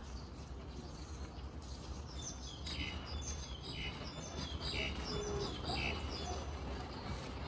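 Birds chirping: a short high call repeats about once a second from about two seconds in, with quicker, higher chirps around it, over a steady low background rumble.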